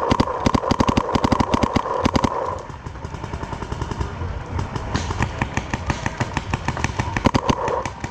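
Paintball markers firing rapid strings of shots, several a second, a close string in the first two and a half seconds and another from about five seconds in. A steady whine runs under the first string.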